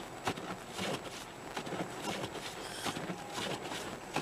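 Car cabin noise while driving on snow-packed roads in a snowstorm: a steady rush, with a sharp knock repeating evenly about every second and a quarter.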